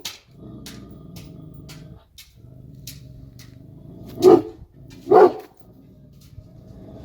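Kangal shepherd dog barking twice, about a second apart, a little past the middle, over a steady low rumble.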